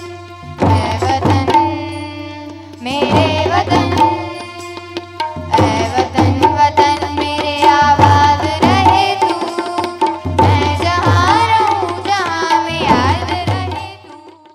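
Tabla and other hand drums playing a rhythm under a held keyboard melody and group singing, in phrases of a few seconds each. The music fades out near the end.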